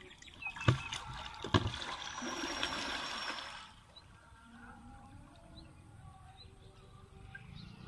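Muddy river water sloshing and splashing around a man wading through it, with two sharp knocks in the first two seconds. After about four seconds the splashing stops and only faint background sound remains.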